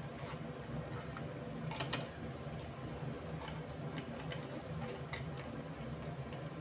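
Plastic spatula scraping and tapping against a steel pan while spices are stirred and roasted in oil, giving irregular clicks over a steady low hum.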